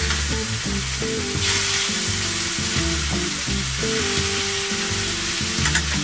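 Red snapper fillets sizzling as they fry skin-down in a hot pan with onions and sweet peppers, the sizzle growing stronger about a second and a half in. Background music with low notes plays underneath.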